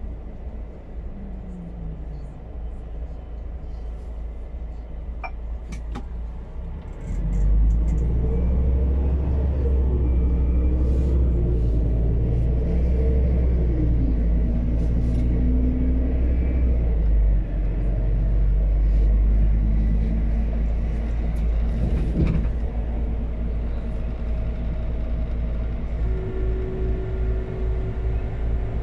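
Inside the cab of a biogas-fuelled Scania P280 truck, the engine runs low and quiet at a standstill. About seven seconds in it gets much louder as the truck pulls away, its pitch climbing and dropping several times as it works up through the gears. It then settles into a steady cruising drone.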